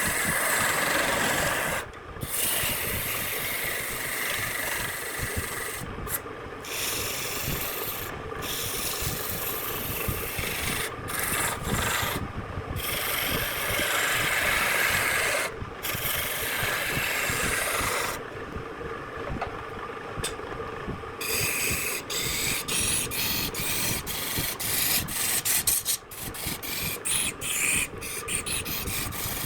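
Wood lathe running with a tool scraping against the spinning wood, a rough hiss over a steady motor hum. The scraping breaks off and starts again abruptly several times, more often near the end.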